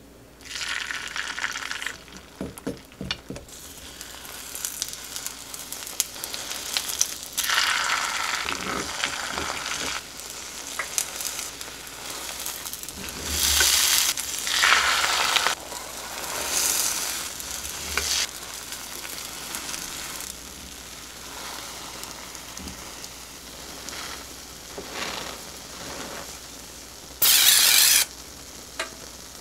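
Beaten egg sizzling in an oiled square rolled-omelette pan, the sizzle swelling each time a fresh portion of egg is poured in or the omelette is rolled. A short hiss of oil spray comes near the end.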